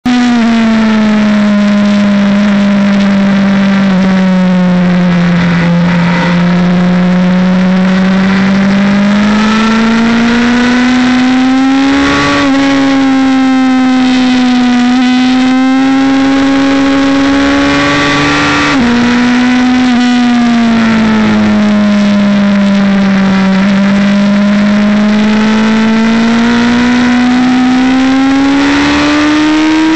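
Racing motorcycle's engine heard onboard at speed on track, its note rising and falling through the corners. There are a few sudden steps in pitch as the rider changes gear, and the revs climb steadily over the last several seconds as the bike accelerates.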